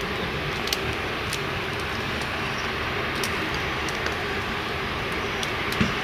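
Steady rushing background noise with a few light clicks of a fork against a plate.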